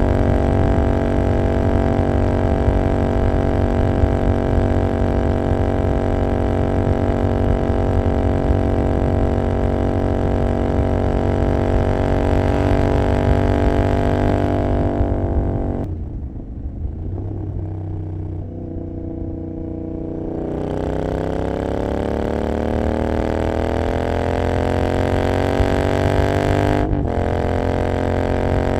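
Royal Enfield Continental GT 650's parallel-twin engine through an Emgo Hooligan exhaust with no dB killer, running steadily at highway speed. About halfway through the throttle closes and the engine note drops, then it pulls back up in a long rising note, broken briefly by a gear change near the end.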